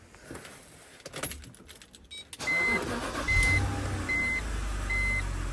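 A few clicks, then a BMW X3 2.5si's petrol straight-six starts about halfway through and settles into a steady idle. A dashboard warning chime beeps about once a second over the engine. Just after a restart the engine runs smoothly, with the cylinder 6 misfire not yet showing.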